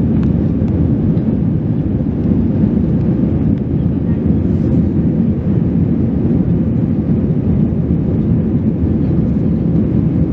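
Airbus A320-200 in flight, heard from inside the passenger cabin: a steady, deep rumble of engine and airflow noise that does not change.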